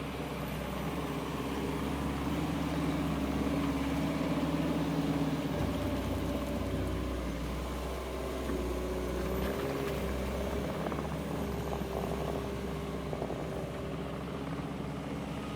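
JCB 1CXT compact tracked loader's diesel engine running steadily while working. Its pitch shifts slightly partway through, with a small swell in level in the first half.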